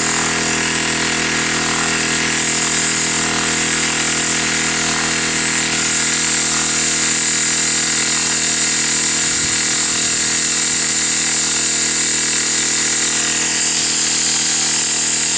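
Small 12 V direct-drive air compressor running steadily, with a loud, steady hiss of air escaping around the check valve, which is staying open when it should shut.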